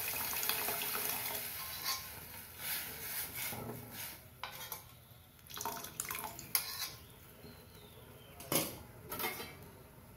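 Cooked dal water poured from a steel bowl into a steel pan of sautéed vegetables, a steady pour for the first couple of seconds, then a steel spoon scraping and clinking against the bowl several times to get the last of the dal out.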